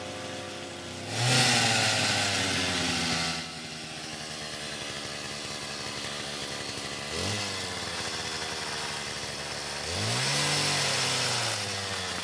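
An engine revs three times: a long rev about a second in, a short blip around seven seconds, and a rev that climbs and falls back near the end, idling low between them.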